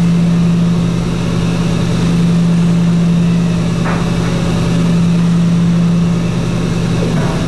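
Tube-rolling machine running steadily as it expands a boiler tube into the tube sheet, a loud, even drone with one faint click about four seconds in.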